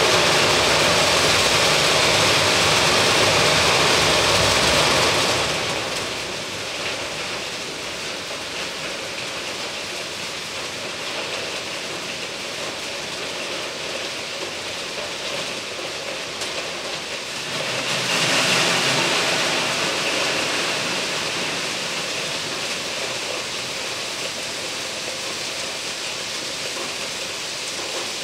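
Crushed-rock ballast pouring from a quarry loading bin's chute into a railway hopper wagon: a steady rushing hiss, loudest for the first five seconds and again from about eighteen seconds in, with a low rumble under the loud stretches.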